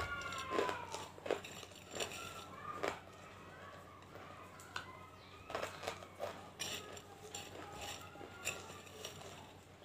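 Hard banslochan (tabasheer) lumps crunched between the teeth, with a string of sharp, irregular crunches. A cat meows at the start.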